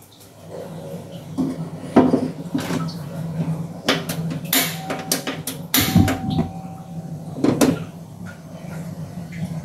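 Metal steamer pot being set onto a gas stove burner: a handful of separate knocks and clanks of metal on metal.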